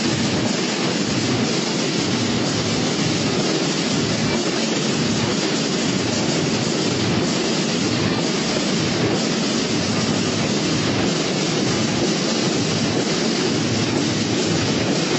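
A steady, loud rushing noise with no clear tone or rhythm, like wind or handling noise on the microphone; no band music can be made out.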